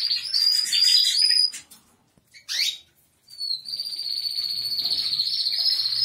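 Spanish timbrado canary song: a fast rolling trill that breaks off about a second and a half in, one short rising chirp in the pause, then a long, even trill that carries on to the end.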